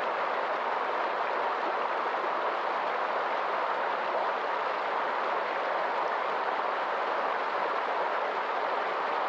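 River water flowing over rocks, a steady rushing sound that does not change.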